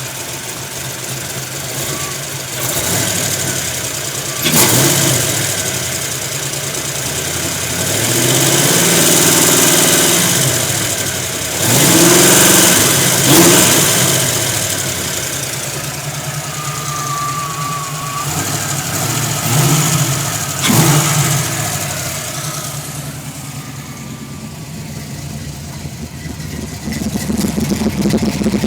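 1991 Ford Mustang engine idling and being revved up and let fall back several times, the sharpest blips about 4 and 21 seconds in, with longer pulls in between. The owner presents this running as a misfire.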